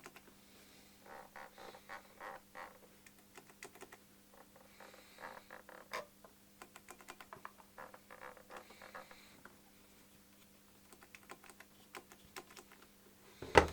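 Light clicks and taps of small plastic parts being handled, in scattered clusters.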